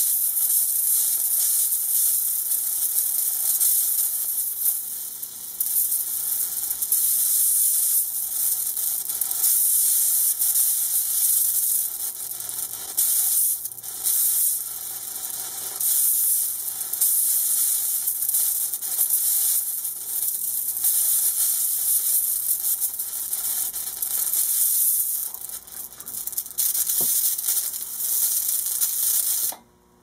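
Electric arc between carbon rod electrodes in a homebuilt arc furnace, running at about 5 A and partially melting a small steel screw, with a steady hiss and crackle. It cuts off suddenly near the end as the power is switched off.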